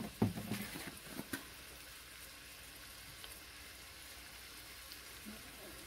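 Ground beef frying in a skillet with a faint, steady sizzle, and a few light knocks in the first second or so.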